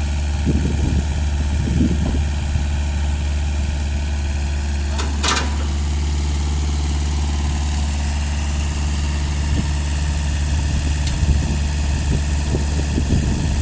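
An engine idles steadily with a low, even hum. A single short metallic clank sounds about five seconds in.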